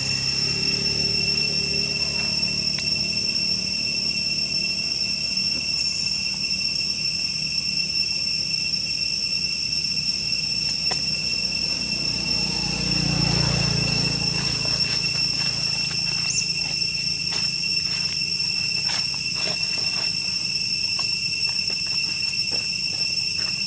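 Steady, shrill chorus of insects (crickets or cicadas) on two high pitches. Scattered short clicks and rustles come in over the second half.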